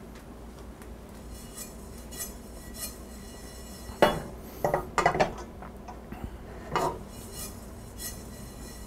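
Stainless steel frying pan of dry-toasting sesame seeds shaken and shifted on a gas stove's grate: light clicks at first, then sharp metal clanks and scrapes, loudest about four to five and a half seconds in and once more near seven seconds.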